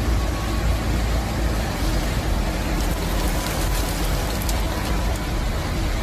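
Typhoon downpour and wind: a steady hiss of heavy rain with a deep wind rumble buffeting the microphone.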